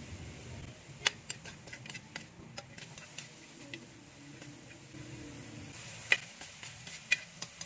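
Metal spatula clicking and scraping against a wok while diced pork belly is stirred, in irregular sharp ticks with a loud knock about six seconds in.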